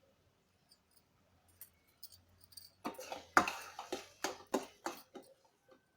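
A spoon scraping and knocking against a kadai while thick carrot halwa is stirred. It comes as a series of irregular clicks and scrapes that begin about a second and a half in and are thickest in the middle.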